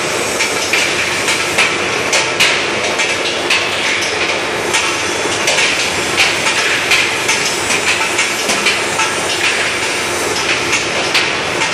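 Steel-ball skew rolling mill running: a hot bar is worked between two spiral-grooved rolls, giving a steady loud clatter with frequent, irregular sharp metallic clanks.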